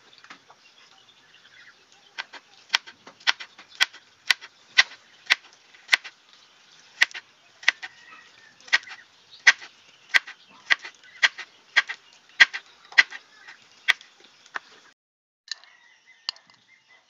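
Large kitchen knife chopping through bitter gourd onto a cutting board: sharp, even chops about three every two seconds, stopping near the end.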